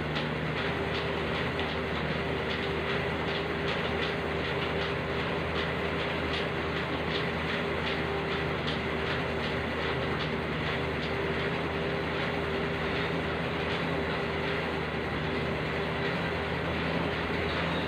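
Elliptical cross-trainer in steady use: a constant whirring hum from the flywheel with a light click about twice a second as the pedals and handlebars cycle.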